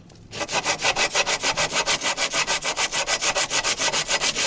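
80-grit sandpaper rubbed by hand on the steel of a pipe wrench: quick, even back-and-forth scraping strokes, several a second, starting a moment in.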